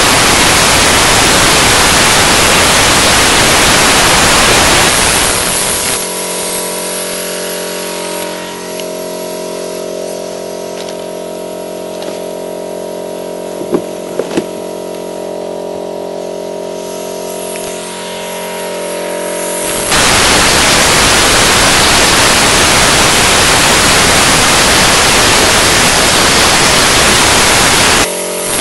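Loud spray-cleaning tool hissing as it blasts an engine block, in two long bursts. Between them, for about fourteen seconds, a machine hums steadily, its pitch stepping up a little and later back down, with two light clicks in the middle.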